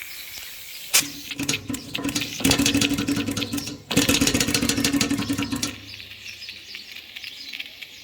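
Refrigerator compressor converted to a steam engine running fast with a rapid clatter and a hiss of steam, then slowing to a fainter hiss with scattered ticks just before six seconds in.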